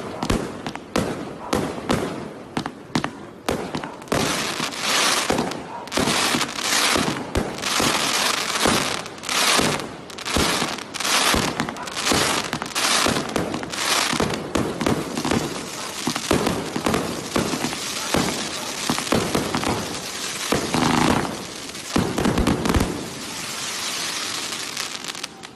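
A 333-shot fan-pattern firework cake with 0.8, 1.2 and 1.5 inch tubes firing in a rapid barrage, several shots a second with crackling between them. The shots stop about 23 seconds in, leaving a fainter crackle that dies away.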